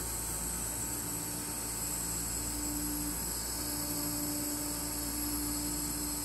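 Laser cutter cutting holes in acrylic sheet: a steady hiss and hum of its fans and air assist, with a low motor whine from the moving head that starts and stops several times.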